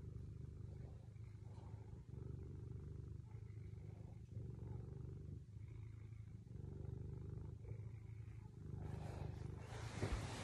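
Domestic cat purring close to the phone, a low, steady purr that swells and dips every second or two. About nine seconds in, rustling and knocks from the phone being moved cover it.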